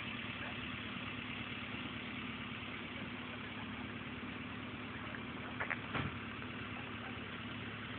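A steady engine-like hum over a background hiss, with a few short clicks about six seconds in.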